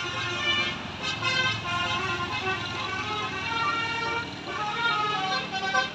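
Basuri musical air horn on a tour bus, its roof-mounted trumpets playing a tune note after note, with several tones sounding together.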